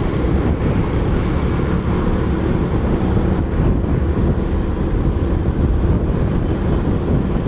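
Motorcycle riding along a road: a steady engine drone under heavy wind rush over the microphone.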